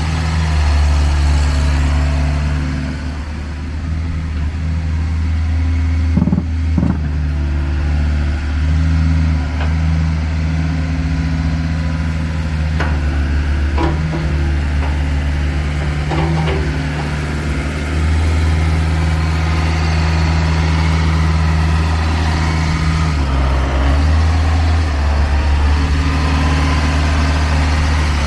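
Kobelco SK60-C 6-tonne excavator's diesel engine idling steadily, with a few short light knocks in the middle stretch.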